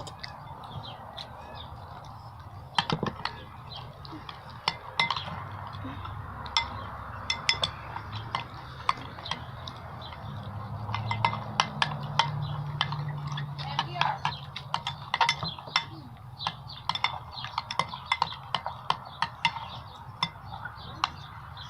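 A spoon clinking and scraping against a bowl in many quick, irregular taps, stirring salt into hand soap to thicken it into slime; the taps come thicker in the second half.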